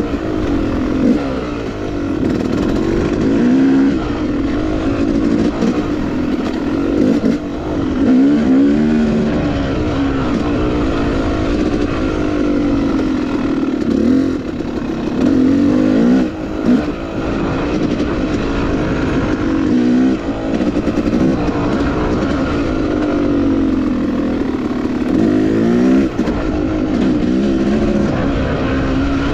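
Yamaha YZ250X two-stroke dirt bike engine being ridden, revving up and down over and over, its pitch climbing and dropping with the throttle.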